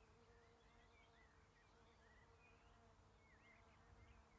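Near silence: faint outdoor background with a steady low hum and scattered soft, quick high chirps.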